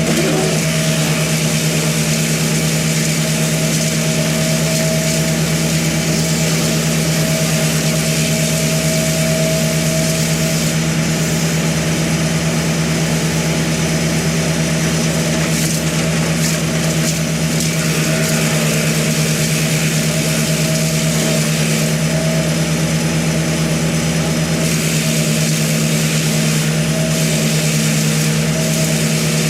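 An engine running steadily at one constant speed, without revving or stopping.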